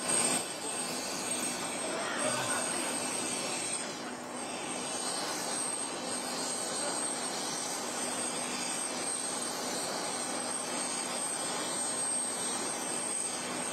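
Helicopter turbine engines running steadily: a broad rushing noise with a thin, steady high-pitched whine over it.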